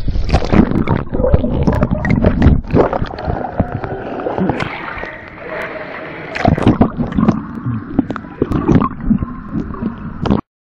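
Pool water splashing and churning right against a waterproof camera's microphone as it is dunked below the surface, with many loud, irregular slaps and knocks. The sound cuts off suddenly near the end.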